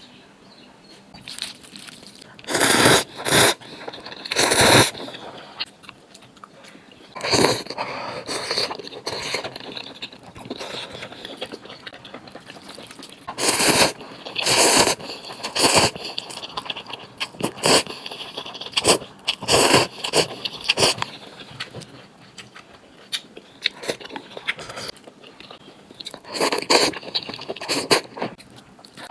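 Someone eating a bowl of spicy noodles with mushrooms: a dozen or so short, loud, irregular slurps and bites, with utensils scraping the bowl in between.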